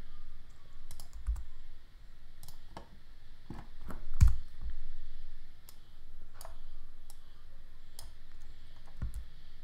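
Scattered, irregular clicks of a computer keyboard and mouse as the user works in 3D modelling software, with one heavier knock a little over four seconds in.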